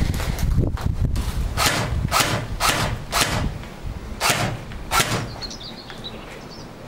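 Airsoft rifle firing six sharp single shots: four about half a second apart from just under two seconds in, then two more around four and five seconds in. Wind rumbles on the microphone through the first half.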